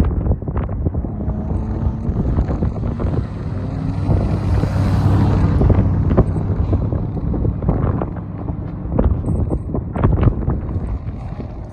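Wind buffeting the microphone in loud, irregular gusts, the loudest sound throughout. Under it, the 5.7-litre V8 of a 2003 Chevrolet Corvette drives away, its engine note faint in the first few seconds.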